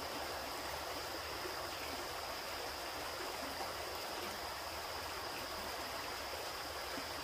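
Creek water running steadily over shallow riffles, an even rushing with a steady high-pitched tone over it.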